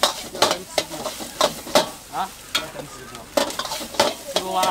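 Metal ladle scraping and clanking against a wok as greens and rice are stir-fried for fried rice. The food sizzles throughout, with sharp clanks coming irregularly, about two a second.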